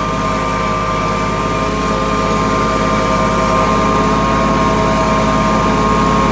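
Farm tractor engine running steadily under load, pulling a moldboard plow.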